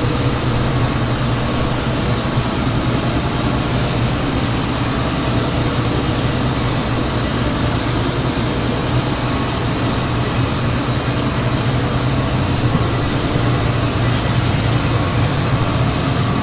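Combine harvester's diesel engine running steadily, with a thin high whine held over it.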